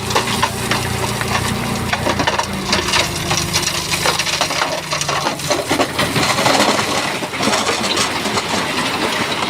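Loose stone and soil tumbling and clattering, a dense run of knocks and cracks. The steady hum of a heavy machine's engine runs underneath and fades out about halfway through.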